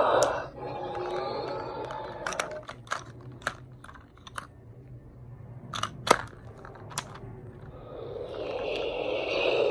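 Plastic clicks and clatter of a Sith holocron toy being handled, its panels worked open and shut to swap a kyber crystal. Near the end, the holocron's own electronic activation sound swells up as it lights.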